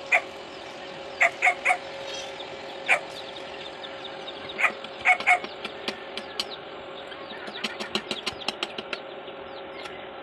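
Stick arc welding on a steel pipe-and-plate joint, crackling in short bursts of rapid clicks in the second half, over a steady hum. Several short, sharp knocks or calls come in the first half.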